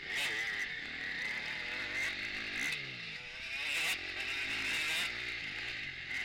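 KTM 250 four-stroke motocross bike's single-cylinder engine heard from on board, ridden hard: the revs climb and drop several times as the rider opens and closes the throttle through the turns.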